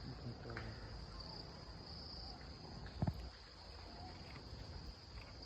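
Steady high-pitched insect chirring in the background, with one brief knock about three seconds in.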